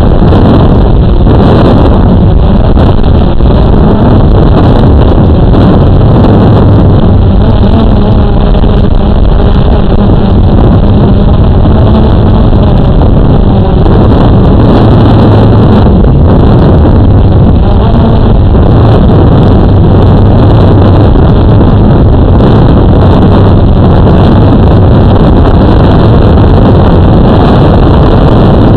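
Motors and propellers of a small radio-controlled aircraft heard from its onboard camera: a loud, steady buzz with rushing air, so loud it is clipped.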